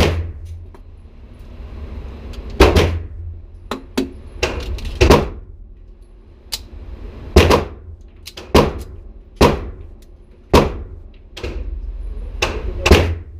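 Gunshots at an indoor shooting range, about a dozen sharp reports at irregular intervals, each with a short echo off the range walls.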